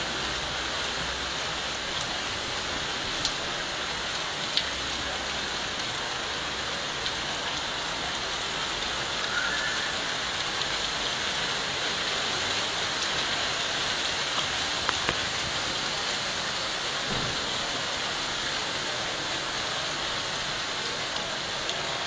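Hail falling with rain: a steady hiss with scattered sharp clicks of single stones striking.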